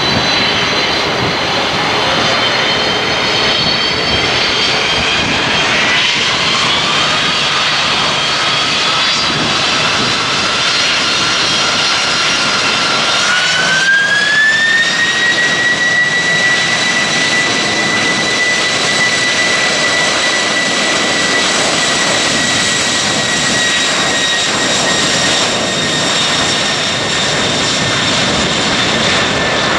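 Airliner jet engines spooling up. The fan whine climbs in pitch twice, about six seconds in and again a few seconds later, then holds a steady high whine over the engine noise.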